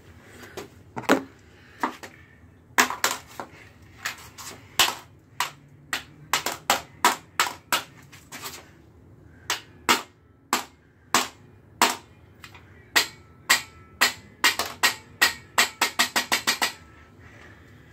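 A rod striking an LG smartphone lying on a concrete floor: a long series of sharp, hard hits at uneven intervals. Near the end they speed up to a quick run of about five blows a second, then stop.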